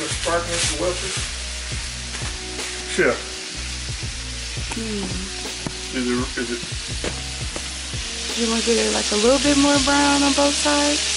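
Flour-dredged chicken breasts frying in hot oil in a skillet, a steady sizzle that grows louder about two-thirds of the way through. A melody plays over it, loudest near the end.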